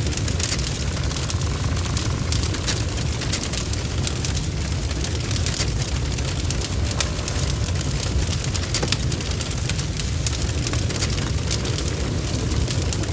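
A barn fire blazing, heard from inside: a steady deep rumble with many sharp crackles and spits at irregular moments.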